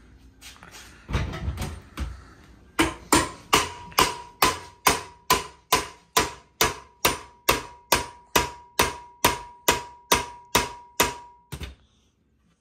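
Hammer blows on a gear puller's bolt, trying to drive the pulley off a VW Beetle generator: about twenty steady, evenly spaced strikes, a little over two a second, each with a metallic ring, after a few duller knocks. The pulley is stuck and does not come off.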